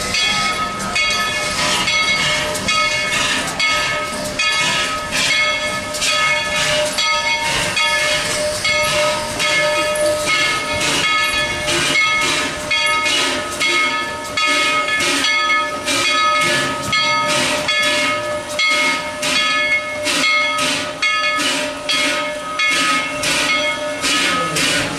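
Baldwin 2-8-2 narrow-gauge steam locomotive chuffing rhythmically, about two beats a second, over a steady hiss of steam.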